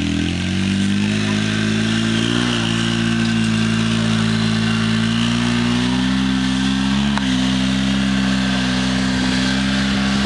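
UTV engine running steadily, its pitch dipping briefly near the start and shifting slightly a couple more times.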